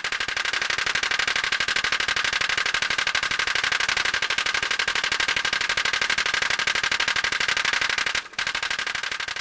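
Pop-pop (putt-putt) boat steam engine running, its diaphragm making a rapid, even popping with a brief break about eight seconds in.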